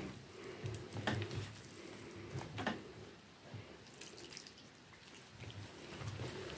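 Thin fish-curry broth poured in a faint trickle from a bowl onto a plate of rice, with a few light clicks.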